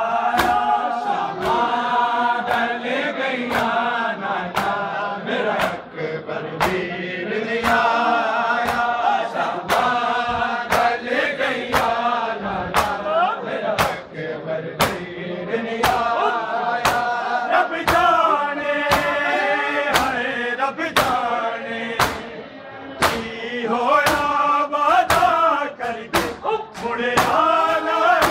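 Men chanting a Punjabi noha in chorus to the steady slaps of matam, hands striking bare chests in unison a little faster than once a second.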